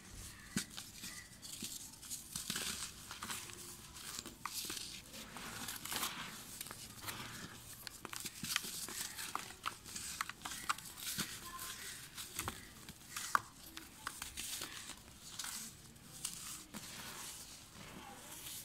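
Hands squeezing and crumbling dry, powdery red dirt: an irregular gritty crunching and crackling of many small clicks, with fine soil sifting back down between the fingers.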